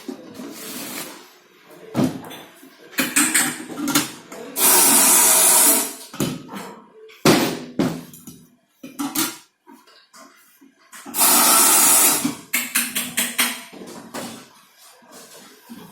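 Factory work on metal heater parts: irregular clattering and knocking, with two loud hissing rushes, each about a second long, a third of the way in and again about two-thirds of the way in.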